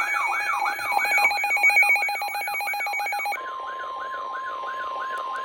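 Layered electronic emergency alert tones: a falling siren sweep repeats about three times a second over a fast-pulsing beep and several high steady tones. About three and a half seconds in, the pulsing and high tones stop, and a steady single tone near 1 kHz sounds under the continuing sweeps. That tone is like the Emergency Alert System attention signal.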